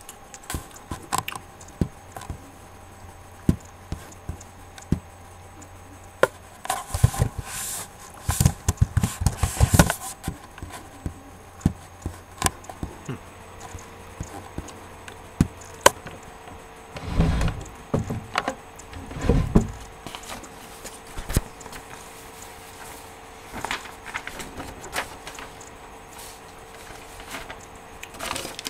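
Scattered clicks, knocks and scrapes of objects being handled close to the microphone, busiest about seven to ten seconds in, with two low thuds a couple of seconds apart near the middle.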